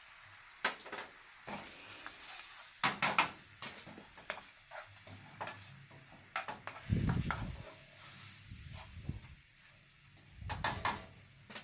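White plastic spatula stirring a cream sauce with shrimp in a nonstick skillet on low heat: repeated short scraping strokes over a faint sizzle from the pan. Two dull bumps come about halfway through and near the end.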